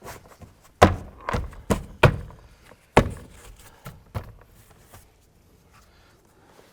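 Interior door trim panel being pushed onto the door shell by hand, its retaining clips popping into place: a series of dull thunks, about seven in the first four seconds.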